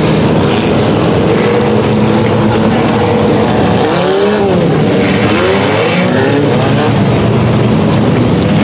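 A pack of dirt-track pure stock and four-cylinder race cars circling the oval, engines running steadily while they run in the rain-soaked track. Cars pass close by about four and six seconds in, their engine pitch rising then falling as each goes past.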